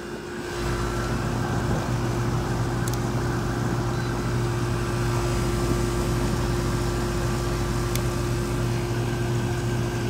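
Amana air-conditioner condenser unit running: a steady electrical hum from the compressor and condenser fan motor, which comes in about half a second in and holds even.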